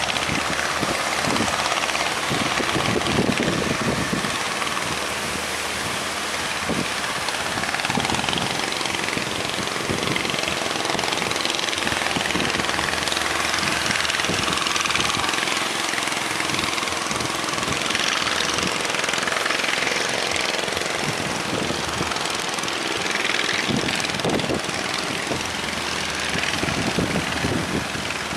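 A fishing boat's engine running steadily, with strong wind buffeting the microphone over the noise of the waves.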